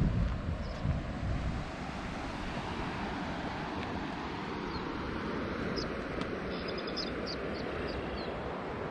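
Steady outdoor noise with wind buffeting the microphone in the first second or so, and a few faint bird chirps in the second half.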